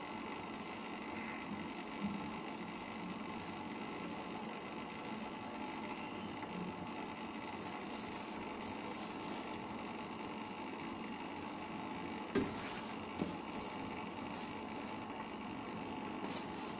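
Steady low hum and hiss of kitchen background, broken by a light knock about two seconds in and two more, close together, about twelve seconds in.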